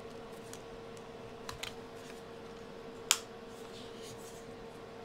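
Small plastic clicks from a 1985 Sanyo MGP-44 Walkman's case being closed up: two light clicks about a second and a half in, and one sharper snap about three seconds in.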